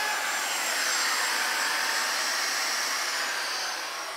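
Handheld electric router running and cutting along the edge of a white oak timber: a steady whine with a rushing noise that fades away near the end as the tool comes off the wood.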